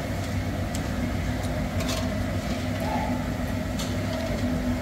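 Steady low mechanical hum of kitchen background noise, with a few light metallic clicks from tongs and a slotted ladle against a wok and a syrup pot as fried jalebis are moved into sugar syrup.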